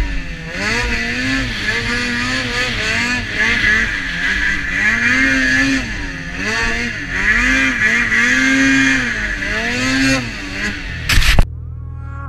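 Snowmobile engine revving up and down again and again as the sled ploughs through deep powder, over a steady hiss of snow spray and wind. About eleven seconds in a short, very loud burst of noise cuts off suddenly, and a steadier engine hum follows.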